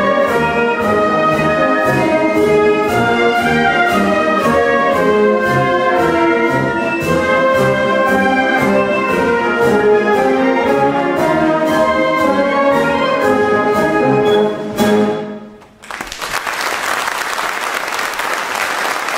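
Wind band of clarinets and brass playing the last bars of a concert march over a steady percussion beat of about two strokes a second. The music stops short about fifteen seconds in, and after a moment's silence the audience applauds.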